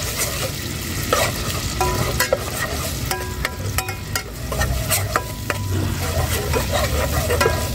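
Metal spatula stirring and scraping spice paste in an aluminium pot, with repeated clinks and short metallic rings against the pot wall over the sizzle of the paste frying on a gas burner.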